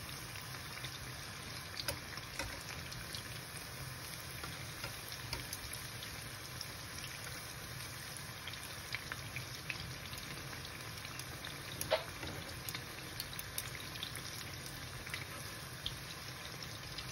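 Pakoras deep-frying in hot oil: a steady sizzle with scattered crackling pops, as the fritters are turned over with metal tongs. One louder sharp click comes about twelve seconds in.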